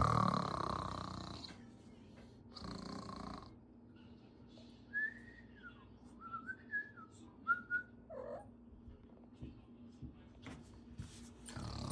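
A person snoring: rasping breaths, with a few thin, wavering whistles in the middle and another rasping breath near the end.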